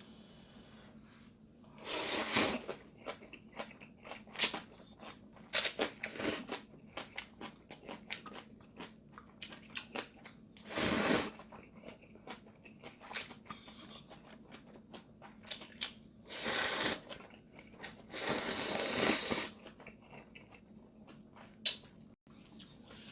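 Close-miked eating of Samyang ramyun: four longer noisy noodle slurps, about 2, 11, 17 and 19 seconds in, between wet chewing and small mouth clicks.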